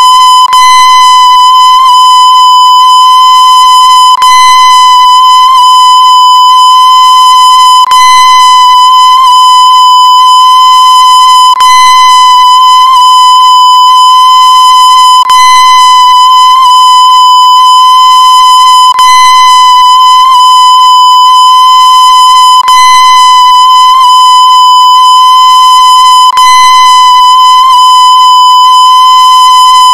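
Loud, steady electronic test-tone beep held at one high pitch. It dips for an instant about every three and a half seconds.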